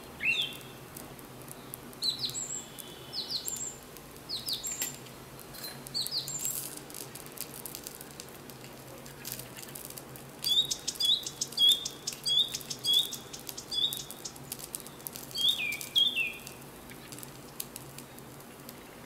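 Small birds chirping with short, quick, downward-sliding calls, and a run of rapid repeated notes in the middle. Light clicks and taps are scattered between the calls.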